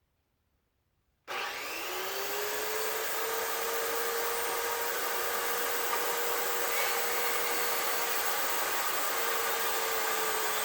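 An electric power tool starts abruptly after about a second of silence. Its motor whine rises in pitch over about a second as it spins up, then it runs steadily under a loud hiss.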